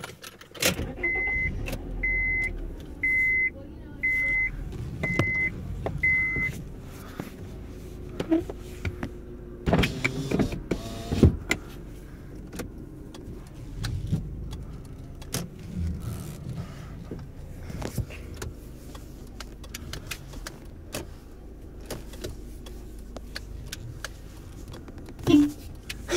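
2005 Honda Civic LX started from the driver's seat: the dashboard warning chime beeps six times, about once a second, over the steady low hum of the engine idling. Scattered knocks and handling noises follow inside the cabin.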